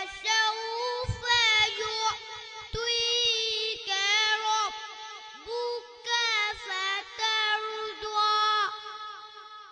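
A boy singing a devotional song solo, unaccompanied, in a high voice. He holds long, ornamented notes and pauses briefly between phrases.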